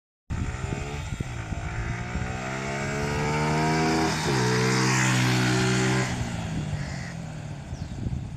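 Suzuki Gixxer 155 single-cylinder motorcycle on its stock exhaust accelerating past: the engine note rises for about four seconds, dips briefly at a gear change, holds steady at its loudest, then fades as the bike moves away.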